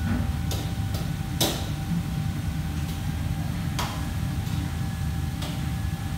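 Commercial kitchen background: a steady low hum of ventilation with a faint whine. Over it come about five sharp clinks of kitchenware, the loudest about a second and a half in.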